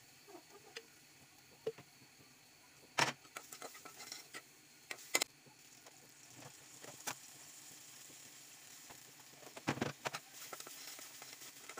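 A spatula stirring and scraping in a blackened karahi of frying onions with ginger and garlic paste: scattered sharp scrapes and knocks against the pan, the loudest about three and five seconds in and again near ten seconds, over a faint sizzle.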